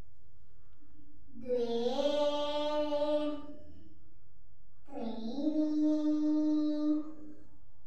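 A child's voice holding two long sung notes, each about two seconds long, sliding up at the start and then held steady at one pitch.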